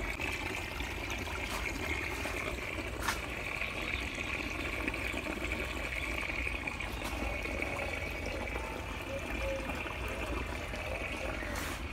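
Water running steadily from a tap through a hose pipe into a plant bed, with a steady high-pitched whine over it and a few faint clicks.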